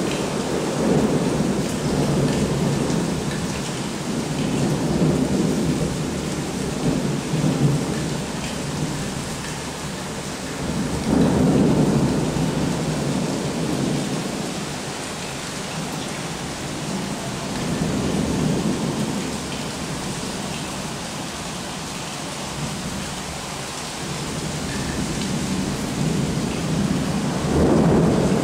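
Heavy rain falling steadily in a thunderstorm, with thunder rolling in four low, slow swells, the last one near the end.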